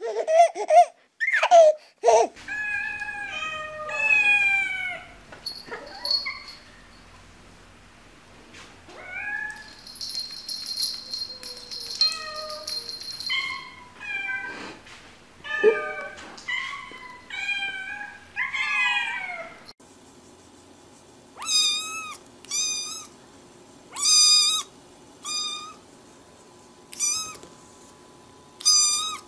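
Cats meowing in a string of clips after a short loud sound at the start. From about two-thirds of the way through, a kitten gives repeated short, high-pitched mews, about one every second and a half.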